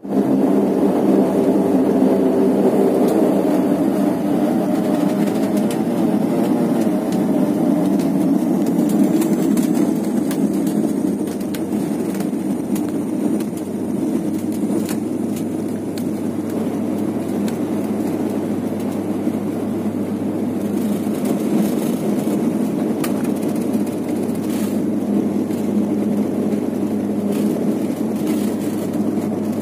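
Cabin noise of a Bombardier Q400 turboprop airliner rolling on the runway: a loud, steady engine drone with low humming tones and the rumble of the main-gear tyres on the tarmac.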